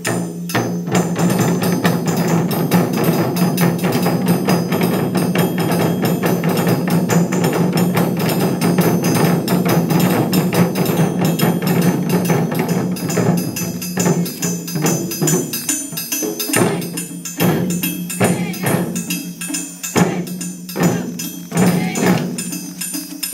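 Japanese taiko drum ensemble playing dense, fast drumming with a steady low ring under the strokes; from about halfway on the playing breaks into separate accented strokes and short pauses.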